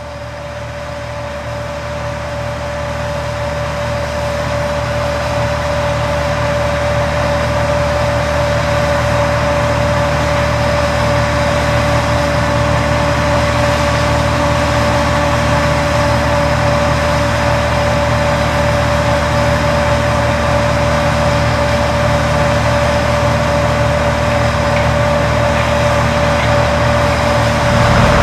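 John Deere Titan-series combine running while harvesting corn: a steady machine drone with a constant whine above it, growing louder over the first few seconds and then holding steady.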